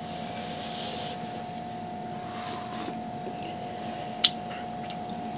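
Quiet steady background hum with a faint steady tone running through it, a short hiss in the first second and a single sharp click about four seconds in.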